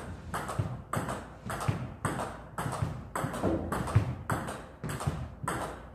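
Table tennis push rally: a plastic ball clicking off rubber-faced paddles and bouncing on the table in a steady rhythm, about two to three clicks a second.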